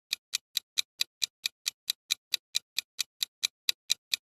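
Countdown-timer sound effect: a steady run of sharp clock-like ticks, about four to five a second.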